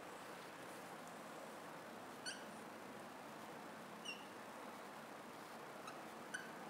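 Marker squeaking on a whiteboard while writing: a few short, high squeaks, spaced a second or two apart, over a faint steady room hiss.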